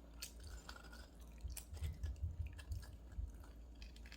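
Faint chewing of freshly baked sesame chewy bread, with scattered small clicks and a run of soft low thumps about halfway through.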